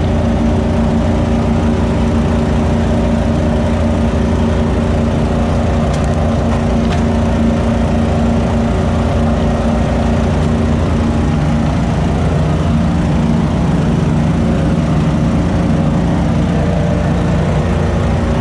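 Engine of a leaf-collecting vacuum rig running steadily, with a slight shift in its tone a little after the middle.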